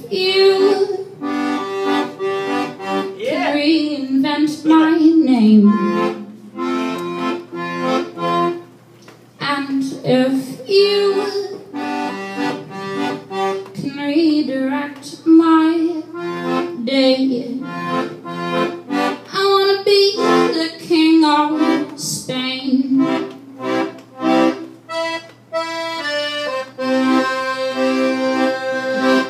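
Piano accordion playing a song: short, rhythmic chords pumped out under a melody line, settling into held chords near the end.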